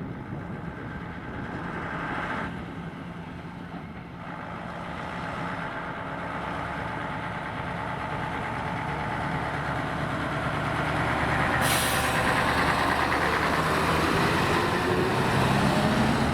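Fire engine's truck engine running and growing steadily louder as it gets moving, with a short air-brake hiss near the twelve-second mark and the engine pitch rising near the end.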